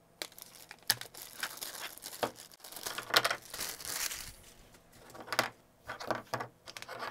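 Plastic bags crinkling as they are handled, with scattered sharp clicks as small plastic breadboards are set down on a cutting mat.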